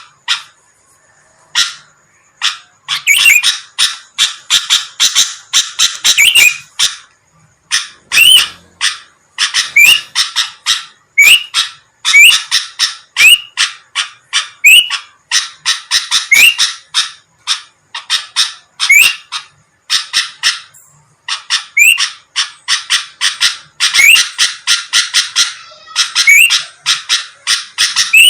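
Sooty-headed bulbul (kutilang) singing loudly in rapid chattering phrases, each a second or two of fast notes with short rising whistles, separated by brief pauses. It goes quiet for about two seconds at the start.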